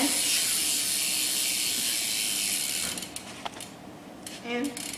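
BMX rear wheel spinning free, its cassette hub's pawls ratcheting in a fast, steady clicking buzz that stops about three seconds in, followed by a few separate clicks.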